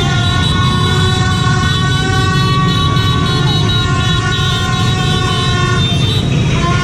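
Celebratory honking: several vehicle horns held down together in long, steady blasts over the constant rumble of a dense motorbike convoy.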